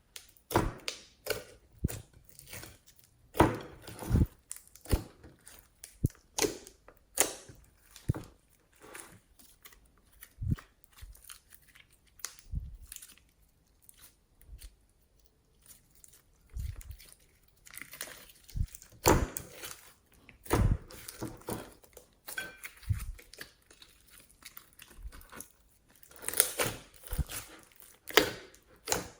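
Slime being squished, stretched and kneaded by hand: a steady, irregular run of sticky pops, squelches and crackles, some sharp and loud.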